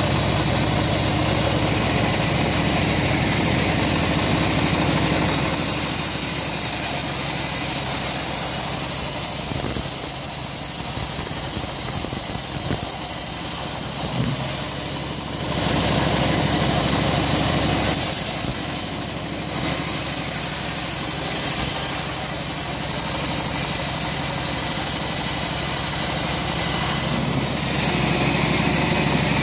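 Homemade band sawmill running steadily, its drive motor and blade giving a constant drone while it rips teak heartwood into beams. A high hiss from the blade cutting comes in about five seconds in, breaks off briefly a few times around the middle, and stops shortly before the end.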